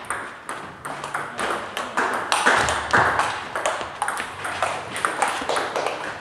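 Table tennis rally: the ball clicking sharply off the bats and the table in quick alternation, about two or three hits a second.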